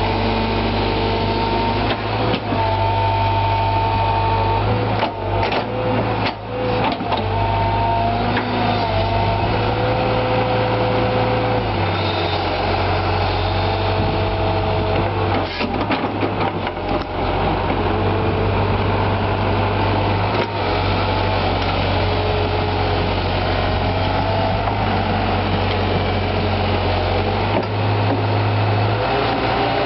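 JCB JS130 tracked excavator working, its diesel engine running with a steady hum and whining tones that step up and down in pitch as the hydraulics are worked. There are a few brief clatters about five to seven seconds in and again around fifteen to seventeen seconds.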